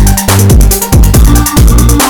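Loud electronic dance music with a heavy, pulsing bass and a fast steady beat.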